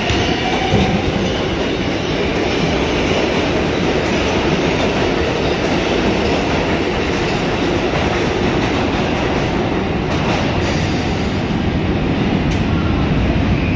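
New York City Subway R142/R142A train moving through an underground station: a steady loud rumble of steel wheels on the rails, with some clicking over the rail joints.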